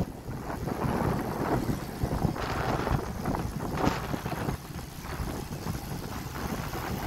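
Wind rushing over the microphone of a camera carried on a moving bicycle, with rolling road and tyre noise and a few brief clicks.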